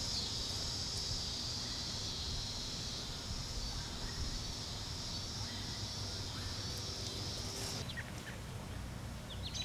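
Evening insect chorus, a steady high-pitched shrill that cuts off about eight seconds in, followed by a few short bird chirps.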